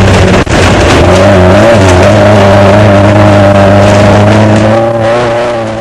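Desert race car's engine running hard under load, loud and distorted, heard from an onboard camera; its pitch dips and recovers about two seconds in, then holds steady before fading out near the end.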